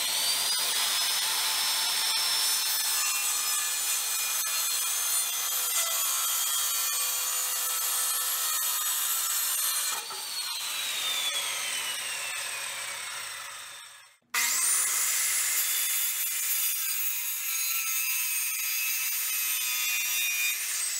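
Corded circular saw cutting a wooden board: the motor runs at full speed through the cut, is released about halfway through and winds down with a falling whine. A few seconds later it spins up again for a second cut and runs until it begins to wind down at the very end.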